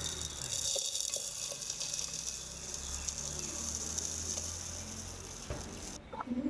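Dry-roasted coriander seeds and whole spices poured into a mixer-grinder jar, a steady high rustling patter of seeds sliding in. It stops abruptly near the end.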